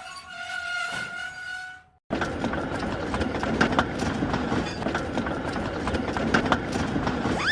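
Steam locomotive whistle blowing on one steady pitch for about two seconds, then a cut to a steam train running along the rails with a noisy, clattering rhythm.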